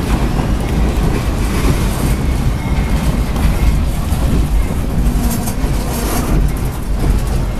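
Boxcars of the Canadian Pacific Holiday Train rolling past at close range: a steady rumble of steel wheels on the rails, with a brief spell of clicking about five seconds in.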